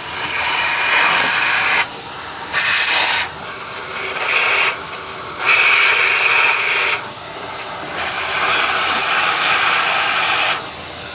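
Loud rushing air from a nozzle cleaning out the emptied injector bores. It surges and eases about five times as the nozzle is worked in and out.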